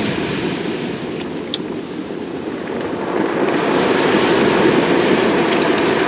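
Steady wind rumbling on the microphone together with surf washing on a shingle beach, swelling louder about halfway through.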